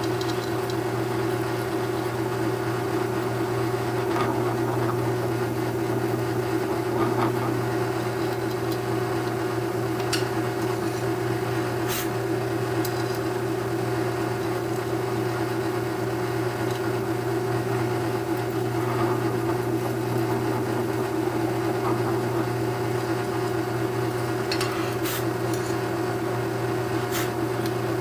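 Benchtop drill press motor running with a steady hum while a twist bit, centred by a self-centering hinge-bit sleeve, drills into wood through a hinge's screw hole, with a few sharp ticks.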